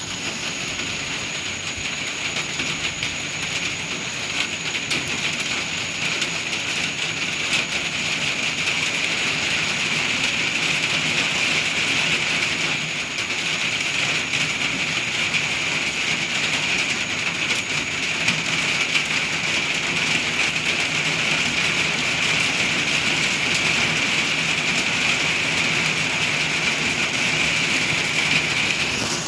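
Steady rain shower falling: a dense, even hiss of many drops with fine ticks of individual drops through it, growing a little louder over the first several seconds.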